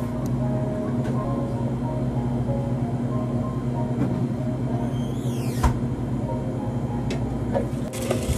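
Steady low hum of shop equipment running, with a brief high squeak that falls in pitch about five seconds in and a short rustle near the end.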